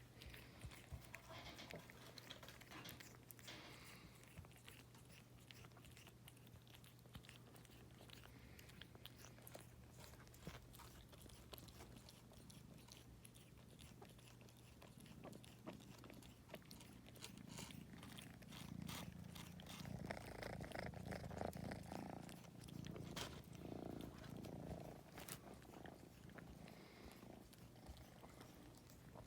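Munchkin cat gnawing and chewing on a string: faint, irregular small clicks. Past the middle comes a louder stretch of low purring.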